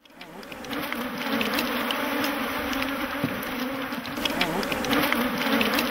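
Several honeybees buzzing, their hum wavering up and down in pitch and fading in over the first second.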